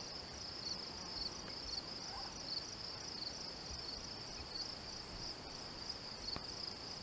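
Crickets chirping: a faint, steady, high-pitched trill that pulses in a fast, even rhythm.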